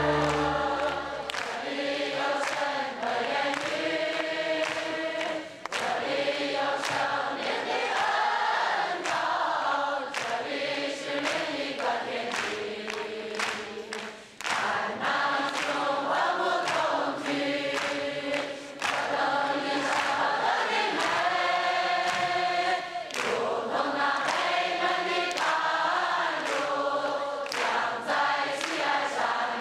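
A congregation singing a Chinese Christian hymn together, with steady handclaps on the beat about twice a second.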